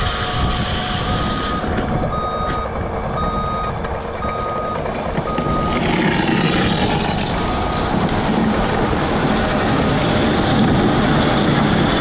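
Vehicle backup alarm beeping on one pitch about once a second over a running truck engine. The beeping stops about eight seconds in, while the engine keeps running.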